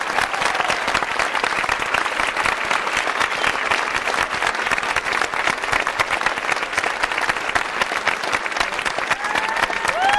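Large stadium crowd applauding steadily. Someone in the crowd lets out a long, high held note near the end.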